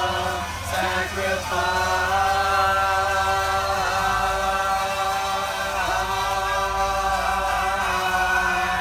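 A group of voices singing together, holding one long chord, with a couple of brief dips in pitch.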